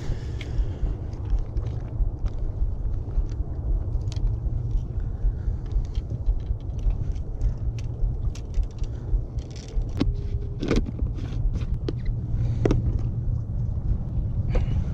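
Wind buffeting the microphone in a steady low rumble, with scattered clicks and taps from handling a fishing rod, reel and line.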